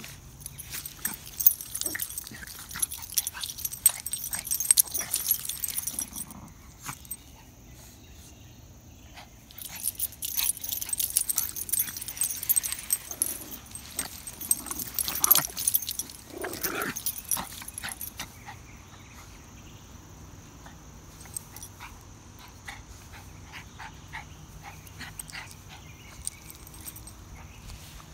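Two small dogs on leashes scuffling and playing in grass. Their harness tags and leash clips jingle in two busy spells, with a few brief dog whimpers, and it quietens to occasional faint jingles in the second half.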